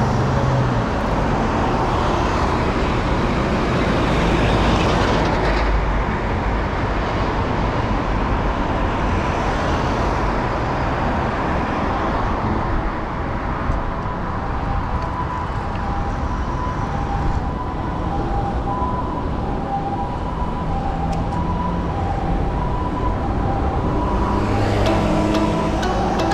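Road traffic at a busy intersection: cars and trucks passing in a steady wash of tyre and engine noise, with low rumbling wind buffeting the microphone. A faint, repeating beep-like tone comes in during the second half.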